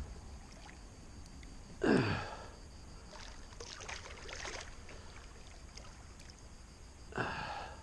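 Two short vocal exhalations from the angler, each falling in pitch, about two seconds in and again near the end, made while straining against a hooked wels catfish. In between comes fainter splashing as the catfish breaks the surface beside the kayak.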